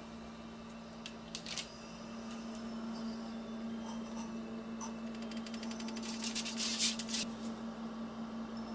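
Steady electric hum of a running oven. A couple of clicks come about a second and a half in, then a burst of foil crinkling from about 6 to 7 seconds as the aluminium foil covering the pan is lifted off.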